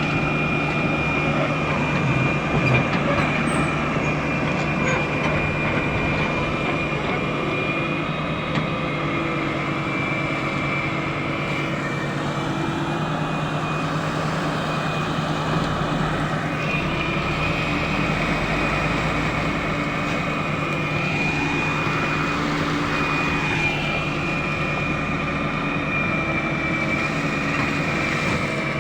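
Heavy diesel machinery running steadily: a concrete transit mixer truck working alongside a backhoe. A high, steady whine sits over the engine noise.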